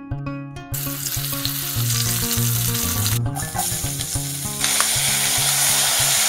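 Hot oil sizzling in a kadai as spices and then sliced onions are tipped in. The sizzle starts about a second in, breaks off briefly near the middle, and gets louder from about four and a half seconds in.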